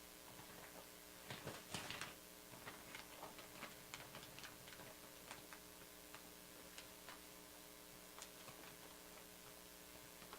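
Near silence over a steady electrical hum, with faint scattered clicks and short rustles of something being handled, the most noticeable a second or two in.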